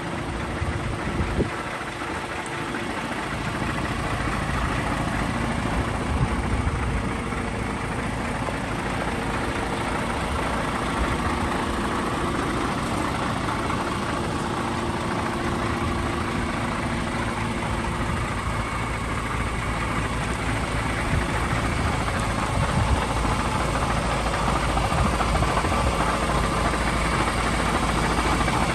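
Diesel engine of a DAF CF 8x4 concrete mixer truck idling steadily.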